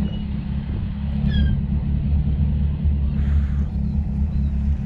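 Boat engine idling steadily with a low, pulsing rumble, while gulls give short falling calls at the start and about a second in.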